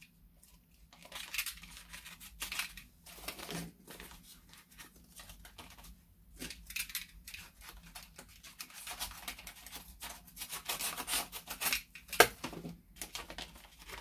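Utility knife blade scraping and slicing through the packing tape and paper of an envelope, with paper tearing and crinkling in irregular strokes. One sharp tap stands out a little past twelve seconds.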